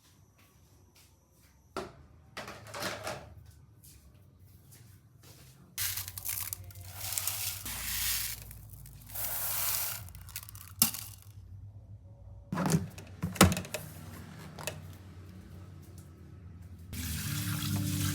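Kitchen tap water running into a sink in stretches, with knocks and clatter of things being handled in the sink.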